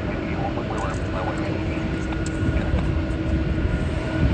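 Jet airliner's engines rumbling with a steady whine, the rumble growing louder a little past halfway.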